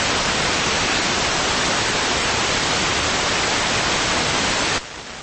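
Loud, steady static hiss from a blank recording signal, dropping sharply in level about a second before the end.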